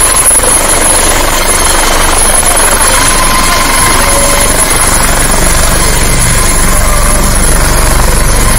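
Helicopter coming in to land and settling onto the pad: loud, steady rotor and turbine noise with a thin high whine.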